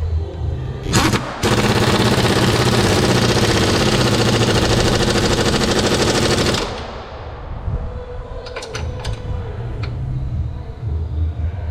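Impact wrench hammering on a suspension or transmission-mount bolt: a short burst, then one long run of rapid rattling strikes for about five seconds that stops abruptly.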